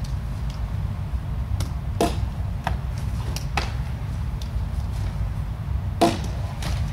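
Sharp smacks of a baseball striking during a catcher's reaction drill: one about two seconds in and a louder one about six seconds in, with a few lighter clicks between, over a steady low rumble.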